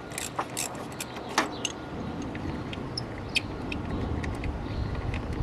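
Scattered metallic clicks and clinks of a socket wrench being worked on a car battery terminal, over a low steady rumble.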